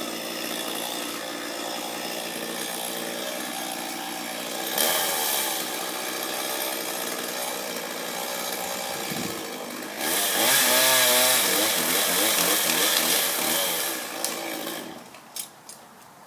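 Chainsaw running, revving up about five seconds in and again from about ten to fourteen seconds with its pitch wavering as it cuts into tree wood, then dropping away near the end.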